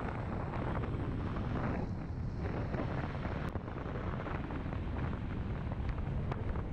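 Steady wind and road noise from a Toyota Land Cruiser Prado driving along a street, picked up by a camera mounted on the outside of the car.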